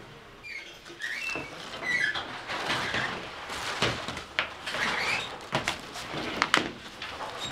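Bakery work clatter starting about half a second in: irregular knocks and clacks of metal baking trays and a wooden oven peel being handled, with a few short squeaks in the first two seconds.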